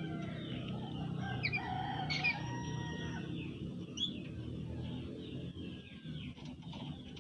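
Bird calling: a run of drawn-out calls, with sharp high chirps about two seconds in and again around four seconds, over a steady low background hum.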